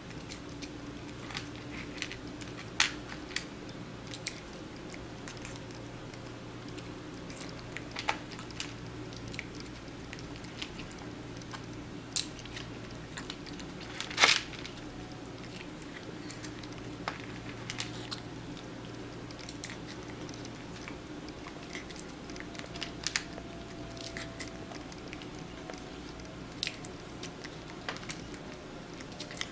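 A kitten crunching dry kibble: scattered short crunches and clicks, the loudest about fourteen seconds in, over a steady low hum.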